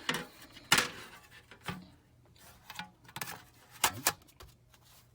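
Sharp, uneven clicks and knocks from the aluminium bottom cover of a MacBook Air being handled and pressed back into place, about seven in all, the loudest near the start and just before the end.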